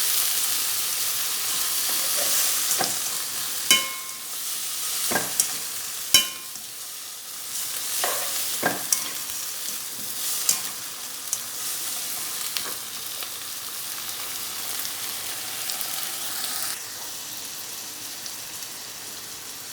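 Tom yum paste and aromatics sizzling in a hot pan of oil while being stirred, with several sharp clinks of the spatula against the pan.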